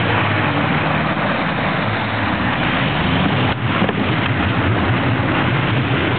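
4x4 SUV engine running hard under throttle as it ploughs through deep puddle water, with a steady rush and splash of water over the engine note, which wavers in pitch.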